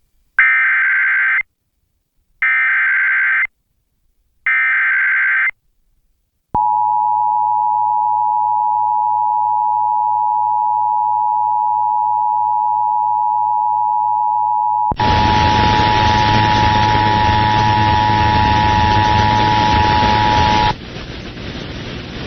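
Emergency Alert System broadcast: three short bursts of SAME digital header data about two seconds apart, then the steady two-tone EAS attention signal starting about six seconds in. A loud hiss of static joins the tones partway through, and near the end the tones stop, leaving only the hiss.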